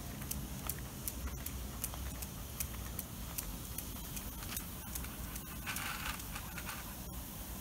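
Footsteps on an asphalt street while a black Labrador is walked on a leash: sharp, even ticks about two to three a second over a low rumble, with a short scrape about six seconds in.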